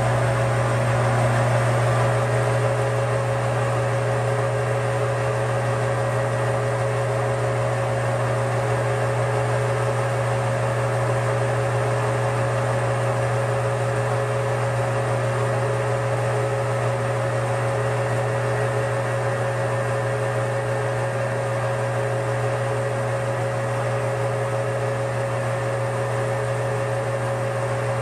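Metal lathe running steadily, its four-jaw chuck spinning: a constant motor and gear hum with a clear, steady higher whine over it.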